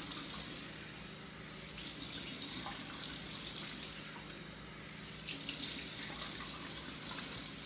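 Bathroom sink tap running steadily while water is splashed onto a face, swelling louder in three stretches of a couple of seconds each.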